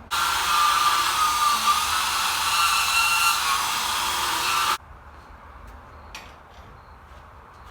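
High-speed power tool cutting into the cart's steel frame, running steadily with a hissy whine for almost five seconds, then cutting off suddenly.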